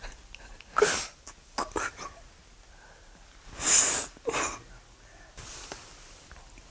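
A man crying: wet sniffles and sobbing breaths through the nose, four or five short bursts with pauses between them.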